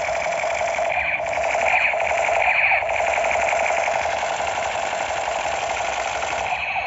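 Battery-powered light-up toy gun playing its electronic firing sound effect through its small speaker: a loud, steady, harsh rattle, pulsing about once a second over the first three seconds.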